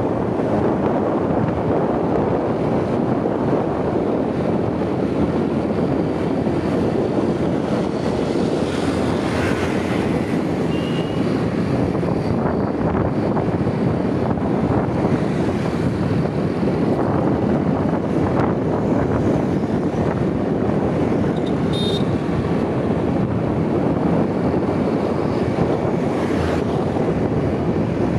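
Steady wind rush on the microphone of a moving motorbike, mixed with the bike's running and road noise.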